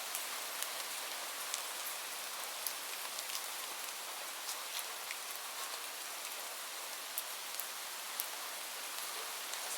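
Steady rain falling, with a constant hiss and many separate drops pattering sharply on a hard surface.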